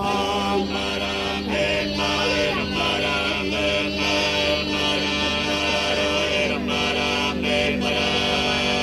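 Sardinian canto a tenore: a quartet of unaccompanied male voices singing in close harmony, the throaty bassu and contra holding a steady drone under the upper voices.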